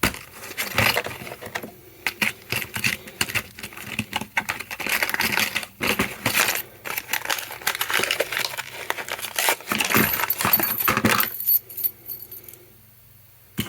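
A small cheap padlock and its tiny attached keys being handled, with irregular metallic jangling and clicking that stops about eleven seconds in.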